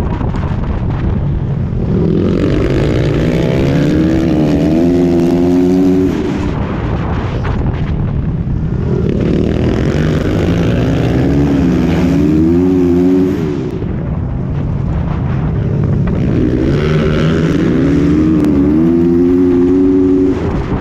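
Honda dirt-track racing motorcycle's engine heard from on board, revving up hard on the straights and dropping back as the throttle is rolled off for the turns, three times over.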